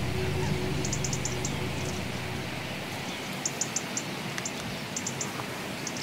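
A huge flock of starlings leaving its reed-bed roost: a steady hiss of the distant flock, with quick groups of short, high-pitched chirps. Low sustained music notes fade out over the first two seconds or so.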